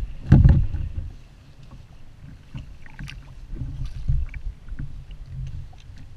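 Choppy water slapping against a plastic sit-on-top kayak and wind buffeting the microphone, an uneven low rumble that is loudest about half a second in. Faint scattered clicks from fishing line being handled and wound onto a hand winder.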